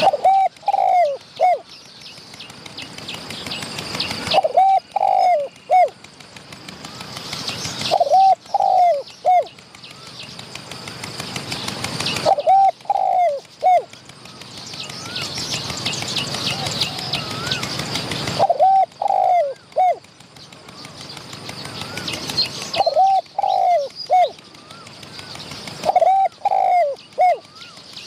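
Spotted doves cooing: a short phrase of three or four arched coos, repeated about every four seconds. Faint chirps of small birds and a steady high hiss run underneath.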